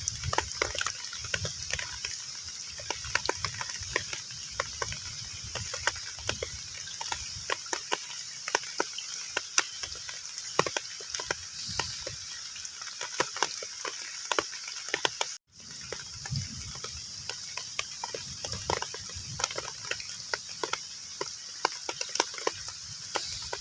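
Heavy rain falling on a pond's water surface: a steady hiss with a dense, irregular patter of drops. The sound cuts out for a split second about fifteen seconds in.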